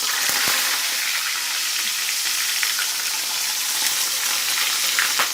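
Fish frying in hot oil: a loud, steady sizzle.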